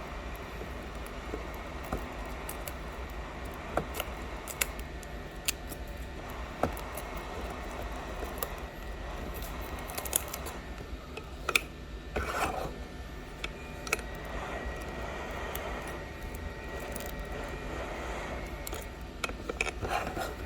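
A blade scraping and picking the shattered back glass off an iPhone 11, with scattered sharp clicks and ticks of glass chips and a short scraping stretch about twelve seconds in, over a steady low hum.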